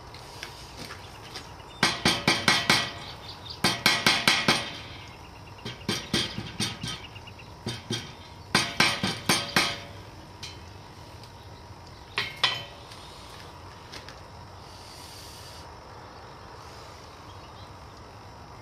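Hammer blows forge-welding a bar of bottle caps on an anvil, in quick runs of about five or six ringing, metallic strikes. The runs stop about twelve seconds in, leaving a steady faint hiss.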